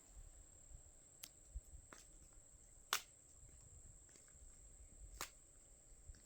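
Near silence, with a faint steady high-pitched tone and a few faint sharp clicks, the loudest about three seconds in.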